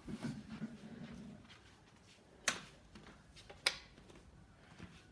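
Two sharp clicks or knocks about a second apart, with faint handling sounds around them.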